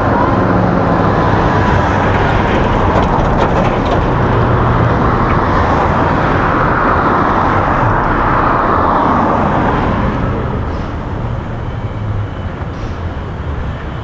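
Street traffic noise, with a vehicle passing that is loudest about seven to nine seconds in and fades after about ten seconds.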